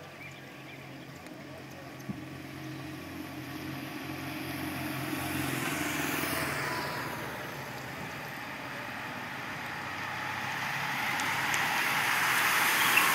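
A motor vehicle's engine hums as it comes up the road and passes about halfway through, its pitch dropping as it goes by. Then a pack of racing bicycles sweeps past near the end in a rising rush of tyres and air.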